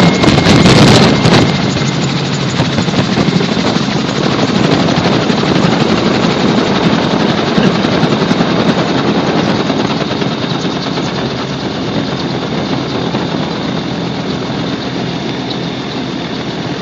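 Gyrocopter in flight, heard from on board: a steady drone of engine and propeller mixed with rushing wind noise. The wind noise is louder for about the first second, then the sound settles and stays steady.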